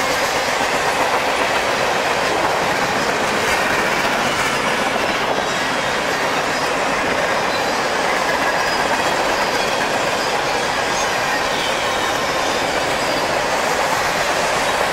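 Freight cars of a long mixed freight train rolling past at close range: a loud, steady rolling noise of steel wheels on the rails.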